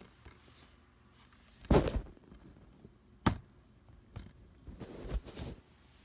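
A plastic DVD case being handled: a loud knock a little under two seconds in, a sharp click about a second and a half later, then a few short handling noises.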